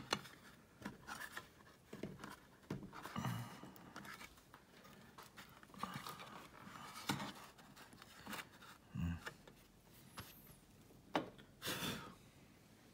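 Faint rustling and light clicks of fingers handling thermostat wires and pressing them into a plastic thermostat backplate, with scattered sharper clicks and short scuffs.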